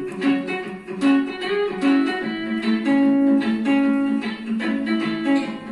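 Background instrumental music: a plucked guitar melody of separate sustained notes.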